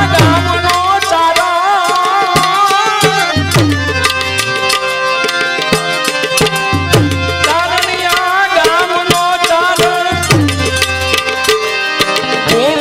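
Devotional bhajan music: a tabla plays a quick stream of strokes, with bass strokes that bend down in pitch about every three seconds, under a wavering, ornamented melody line.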